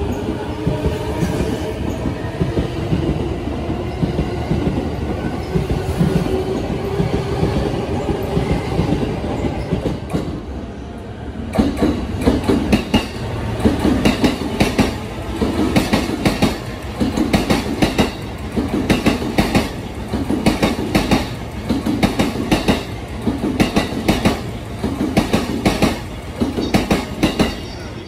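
An E353-series limited express electric train moving past with a steady motor hum. About eleven seconds in, this gives way to an E233-series Chūō Line commuter train running past, its wheels clattering over the rail joints in regular groups of clacks about every second and a half.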